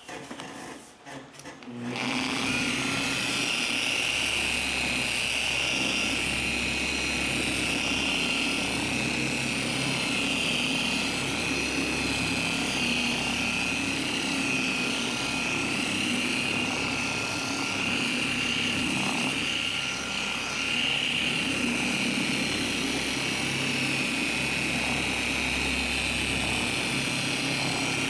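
Electric polisher with a wool buffing pad starting up about two seconds in and then running steadily, a high whine over a lower hum, as it buffs paint that has been wet-sanded to 3000 grit. A few light handling knocks come before it starts.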